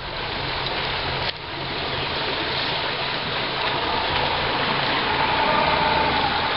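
Boat under way on a calm canal: a steady rush of water and wind, with the low hum of its motor underneath.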